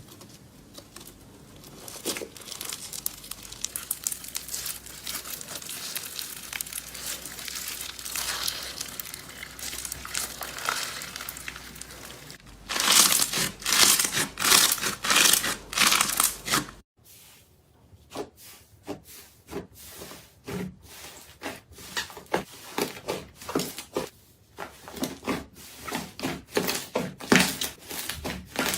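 Slime being squeezed and poked by hand, giving dense crackling and popping. It is loudest in the middle, then changes suddenly at about 17 s to sharper, more separate clicks.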